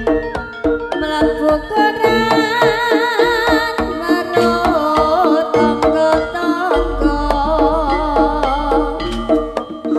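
Live jaranan gamelan music: hand-drum (kendang) strokes over steady gong and metallophone tones, with a wavering melody line above.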